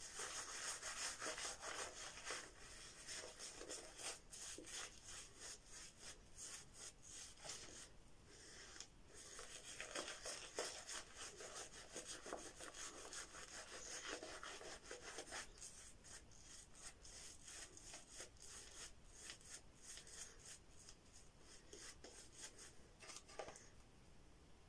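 Boar-bristle shaving brush (Omega 10048) working cream lather onto a four-day stubble: fast, soft scrubbing and swishing strokes against the skin, with a couple of brief pauses.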